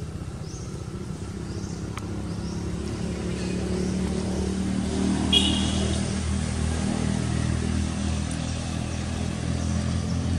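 A motor vehicle's engine running steadily, growing gradually louder, with a brief high squeak about five seconds in.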